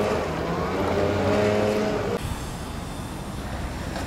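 An engine running with a steady drone for about the first two seconds, ending abruptly; then wind noise on the microphone.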